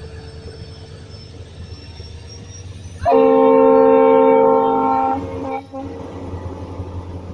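A diesel passenger train rumbles steadily past. About three seconds in, a locomotive's air horn sounds a loud blast of about two seconds, followed by a short second toot.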